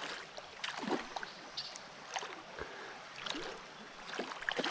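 Shallow creek water running with a steady hiss, broken by scattered small splashes and knocks.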